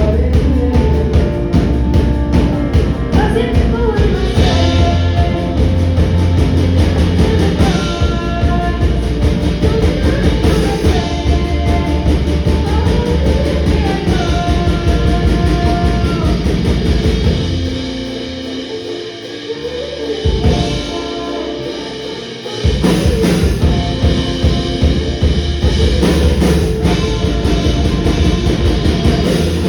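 Rock band playing live, with a singer over drum kit, bass and electric guitar. The bass and drums drop out for a few seconds just past the middle, leaving the voice and a lighter accompaniment, then the full band crashes back in.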